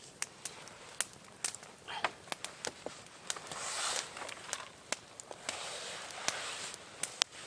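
Wood campfire crackling with sharp, irregular pops. Two longer bursts of nylon tent fabric rustling, about three and five and a half seconds in, as a person climbs into a suspended tree tent.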